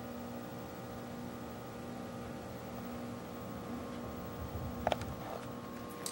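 A steady electrical hum made of several even tones, with a couple of faint clicks near the end.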